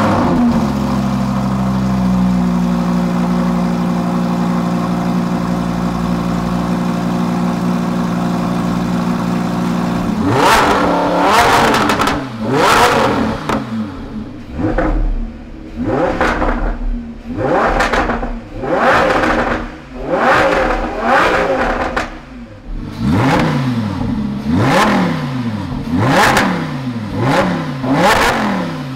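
Lamborghini Huracan's naturally aspirated V10 through a stainless steel Tubi aftermarket exhaust, idling steadily for about ten seconds, its pitch dropping slightly about two seconds in. It is then revved hard over and over, about once a second, each rev rising and falling back.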